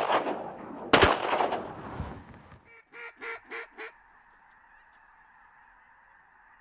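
A shotgun blast about a second in, ringing out for over a second, followed by a quick run of five short honking calls, then faint steady background noise.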